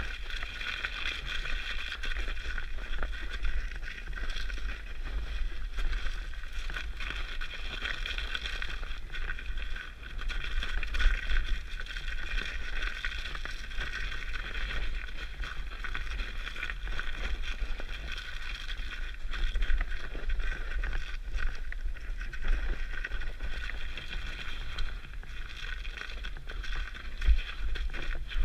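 Mountain bike riding downhill over a snowy trail, heard from a helmet-mounted camera: a steady low wind rumble on the microphone under the hiss and rattle of the bike and tyres, with a few louder knocks.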